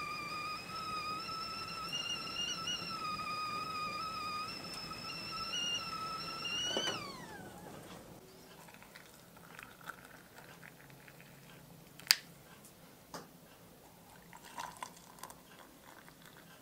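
Stainless steel stovetop whistling kettle whistling at the boil, a steady high whistle whose pitch wavers slightly. About seven seconds in, the whistle slides down in pitch and dies away as the kettle is lifted off the stove. Afterwards come a few faint clicks and knocks, with one sharp click about twelve seconds in.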